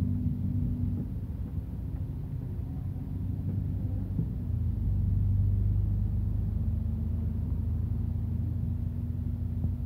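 Steady low drone of a vehicle's engine and road rumble, heard from inside the moving vehicle, a little louder about halfway through.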